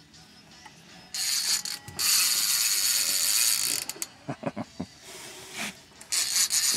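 Baitcasting reel's drag buzzing as a hooked stingray pulls line off. It runs from about a second in to nearly four seconds, comes back near the end, and a few short knocks fall between the runs.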